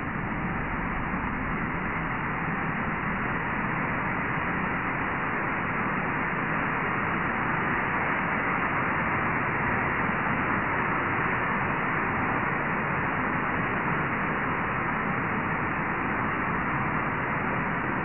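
Wind gusting through a leafy tree canopy, the leaves rustling in a steady rush that swells a little through the middle.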